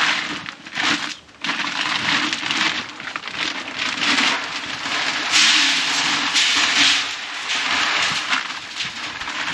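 Bagged chicken feed being poured into a feed barrel: a continuous rushing rattle of pellets or grain, with a short break about a second in.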